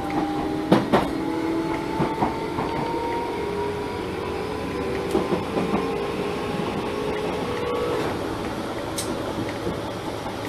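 Enshu Railway 1000-series electric train running, heard from inside the cab: a couple of rail-joint clicks near the start, and a motor whine that rises slowly as the train gathers speed, then cuts out about eight seconds in, leaving the steady rumble of the wheels on the track.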